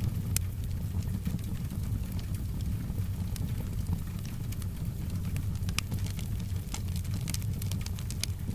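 Wood fire crackling in a fireplace, with scattered sharp pops over a steady low rumble. Soft rain falls in the background.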